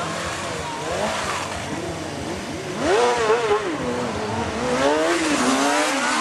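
Motorcycle engine revving hard up and down as it is ridden through stunts, with a sharp rise in revs about three seconds in.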